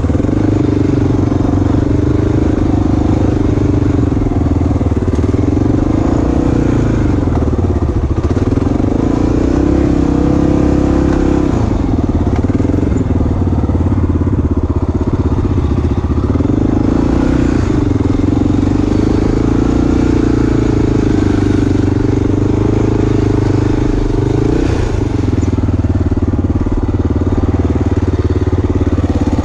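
Dirt bike engine running while under way, its note dipping and climbing again several times as the revs change.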